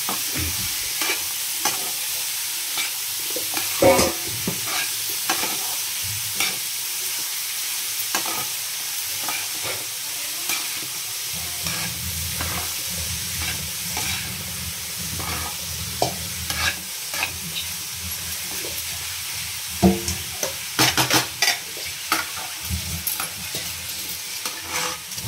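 Grated carrot sizzling in hot oil in a kadai while a spatula stirs it, scraping against the pan many times, with a quick flurry of scrapes near the end.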